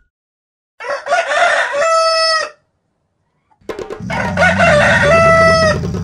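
A rooster crowing twice. Each crow starts rough and settles into a long held note that ends abruptly.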